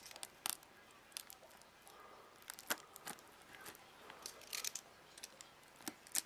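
Faint, irregular clicks, crinkles and scrapes of a shrink-wrapped cardboard box being handled and cut open with a small hand blade.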